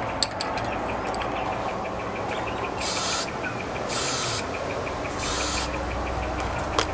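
Aerosol spray paint can hissing in three short bursts, each about half a second long and a little over a second apart, as a coat of paint goes on.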